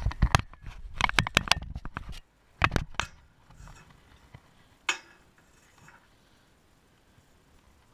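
Light metallic clinks and knocks in quick clusters over the first three seconds, with one more a little before five seconds: magnet-fishing rope and gear being handled against a metal railing.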